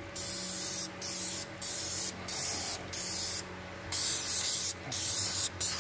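Aerosol spray can of flat black paint hissing in short bursts, about seven squirts each around half a second long, as paint is sprayed into the truck's wheel well. A faint steady low hum runs underneath.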